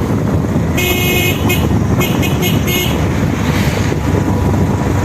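A vehicle horn gives a longer toot, then a quick run of short toots, over a steady heavy rumble of wind on the microphone from riding.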